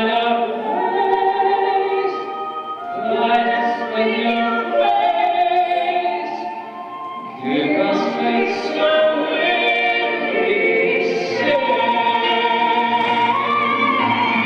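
Music: a choir singing long held notes in slow phrases.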